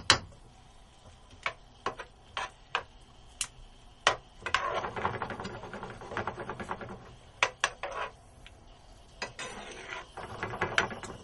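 A utensil tapping and scraping against a pan as mascarpone cheese is stirred into a cream sauce: scattered single taps, with runs of quick clicking in the middle and again near the end.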